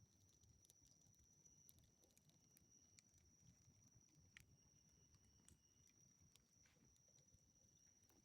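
Near silence, with faint scattered ticks and a thin, steady high whine throughout.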